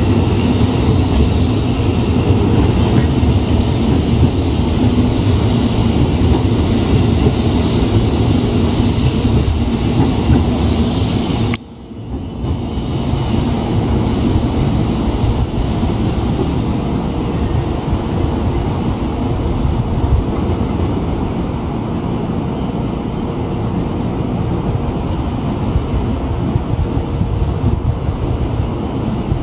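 Electric train running through a station, with rail clatter and a steady hum. The sound drops out abruptly about twelve seconds in, then picks up again, duller than before.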